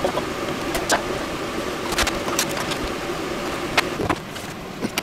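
Steady whirring kitchen background noise with scattered light clicks and knocks, a little quieter from about four seconds in.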